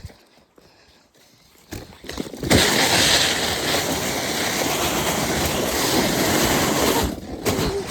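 Rushing noise of a fast slide down a snowy slope toward a ramp, with wind on the microphone and the sled or board scraping over snow and ice. It starts suddenly about two and a half seconds in, runs steady and loud, and drops off sharply near the end.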